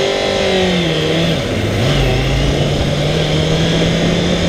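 Kawasaki ZXR400's carbureted inline-four engine accelerating hard, then dropping in pitch about a second in as it shifts up a gear and pulling steadily with a slowly rising note. Air rushing past the bike is heard under the engine.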